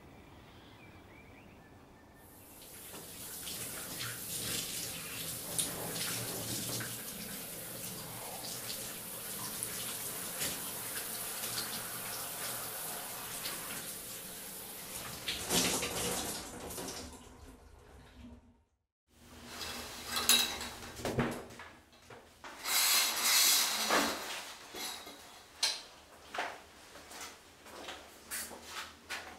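Shower water spraying steadily onto a tiled floor for about sixteen seconds, then shut off abruptly. After a short silence come a series of knocks and clatters and a brief loud hissing rush.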